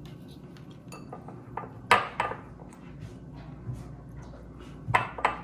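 A few sharp clinks of kitchenware knocking together on a counter: the loudest about two seconds in, two more near the end, with light ticks between, while shredded cheese is scattered by hand.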